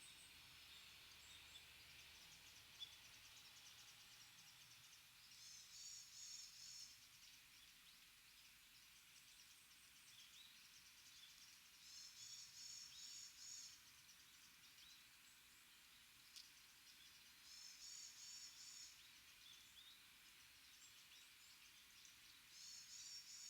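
A small songbird repeating a short, high, rapid phrase of quick notes about every six seconds, four times, with faint scattered chirps in between over quiet forest ambience.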